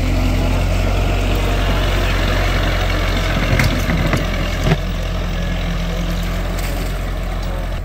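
Diesel tractor engine running steadily at low revs, with a few sharp knocks about four seconds in.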